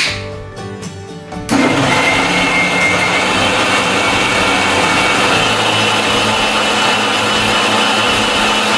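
Background music, then about one and a half seconds in an electric mixer grinder starts suddenly and runs steadily at full speed with a high whine, blending strawberries, milk and water in its steel jar.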